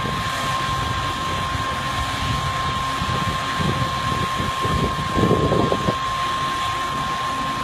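Demolition machinery running steadily, with a constant high-pitched tone and surges of low rumble a little after the middle and about two-thirds of the way through.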